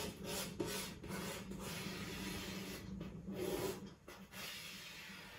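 Chalk rubbing and scraping along a chalkboard in long strokes, retracing a drawn outline to thicken it, with short breaks about three and four seconds in.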